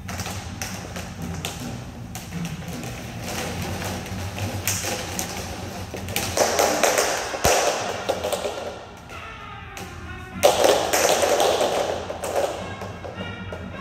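Several hula hoops spinning together and knocking against each other, a run of quick taps and clatters, growing into two louder spells of rattling about six and ten and a half seconds in.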